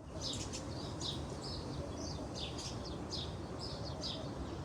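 Small birds chirping: many short, quick chirps, several a second, over a steady low background noise.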